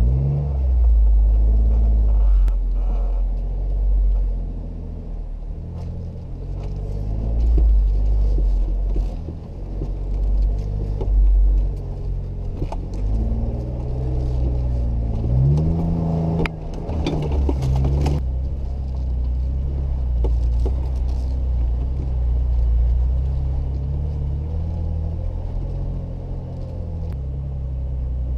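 Jeep Wrangler JK engine running at low trail speed over a rough dirt track. The engine pitch rises and falls about halfway through, and scattered clicks and knocks come from the vehicle over the bumps.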